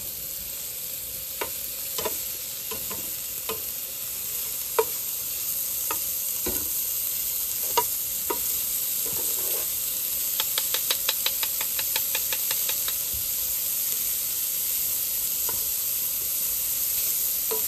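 Sliced sausages sizzling in a frying pan on a portable gas stove, with the scattered clicks of a plastic spatula stirring them against the pan. Near the middle comes a quick run of taps, about seven a second, as the spatula scrapes the pan.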